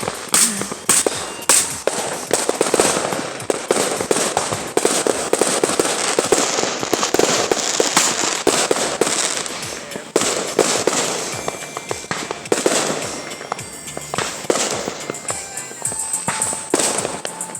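Many firecrackers and fireworks going off at once, a dense, continuous run of overlapping bangs and crackles with no break.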